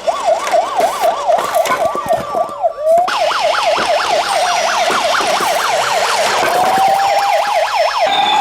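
Emergency-vehicle siren in a fast yelp, its pitch sweeping up and down about four to five times a second. It breaks off briefly about three seconds in, then near the end slows into a long rising wail. Sharp clicks and knocks sound over it in the first three seconds.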